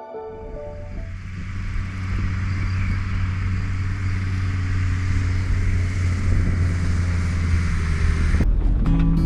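Mercedes G 250 GD Wolf's five-cylinder diesel engine running as the vehicle drives, a steady low drone under a broad hiss. Background music fades out at the start and comes back in near the end.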